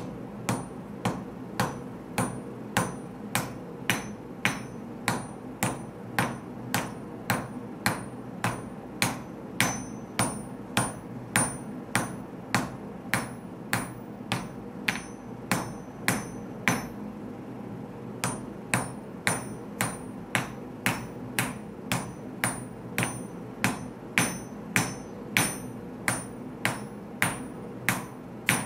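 Hand hammer striking a red-hot Damascus steel knife blade on an anvil at an even pace of a little under two blows a second, each blow ringing. There is a short pause about two-thirds of the way through, over a steady low background noise.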